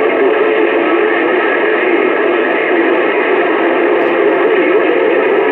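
Bearcat 980 CB radio receiving an open channel between transmissions: steady band static through its speaker, with wavering, garbled tones from distant stations mixed in.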